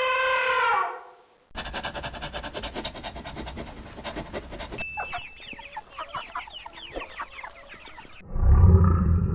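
The end of a rooster's crow, then after a short gap a flock of chickens clucking rapidly, with high cheeping calls mixed in. Near the end a horse starts to whinny.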